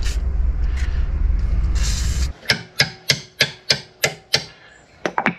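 Aerosol lubricant hissing in short bursts from a straw nozzle, then a hand tool worked against a car's wheel hub in quick scraping strokes, about four a second, with a last few strokes near the end.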